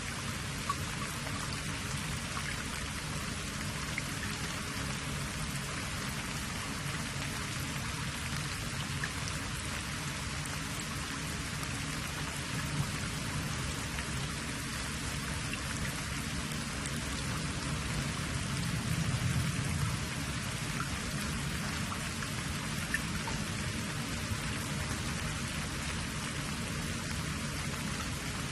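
Steady rain-like hiss with faint scattered light ticks, swelling slightly about two-thirds of the way through.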